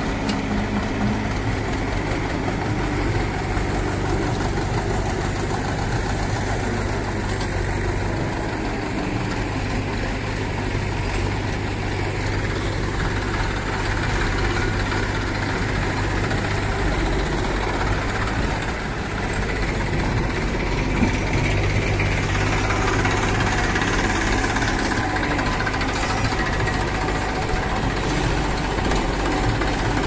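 Diesel engines of farm tractors and a JCB 3DX backhoe loader idling and running steadily, a little louder in the second half.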